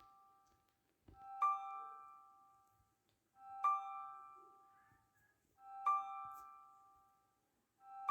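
Background music: a soft keyboard figure of two notes, a low one fading in and a higher one struck, repeating about every two seconds.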